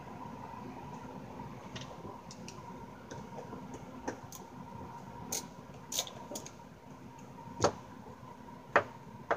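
Scattered sharp clicks and taps of hand tools on a Yamaha THR10 guitar amp's casing as it is unscrewed and taken apart, the two loudest near the end, over a steady faint hum.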